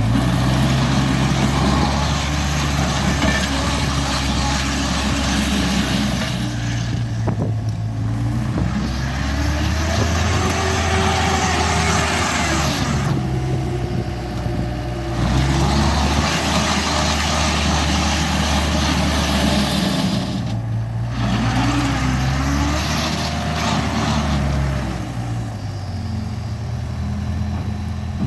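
John Deere 319E skid steer's diesel engine running hard, its noise swelling in about four bouts of several seconds each and easing between them. A whine rises and falls in pitch twice as the machine works.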